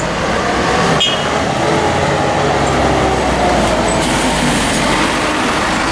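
A city bus driving past close by in street traffic, its engine running with road noise; the engine grows louder from about two seconds in as the bus draws level.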